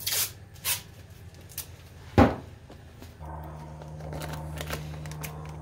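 Painter's tape being pulled and torn off the roll in short rasps while masking plastic sheeting down, with one sharp knock a little over two seconds in. A steady low hum starts about three seconds in.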